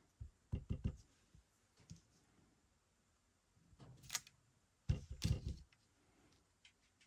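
Soft knocks and clicks of stamping supplies, an ink pad and a clear stamp, being handled and set down on a craft table: a few knocks near the start, a sharper click about four seconds in, and another few knocks about five seconds in.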